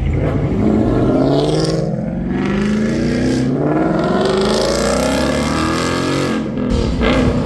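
Ford Mustang engines revving and accelerating hard as the cars pull away, the pitch climbing several times.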